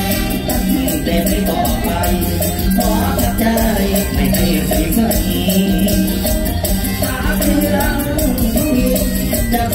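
Live Isan stage band playing through a loud concert PA: a steady beat with a bass line and quick, even percussion ticks.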